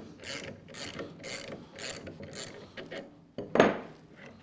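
A ratcheting wrench clicking in strokes about twice a second as it turns the screw of a MacPherson strut spring compressor, backing it off to let the coil spring extend. The strokes stop about two and a half seconds in, and a loud clunk follows as the metal wrench is set down on the workbench.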